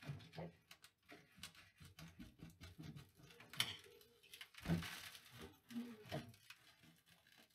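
Pry bar scraping and levering at the broken edges of a hole in a plaster ceiling: irregular small scrapes and knocks, with bits of plaster pattering down. There is a louder knock and crumble about four and a half seconds in.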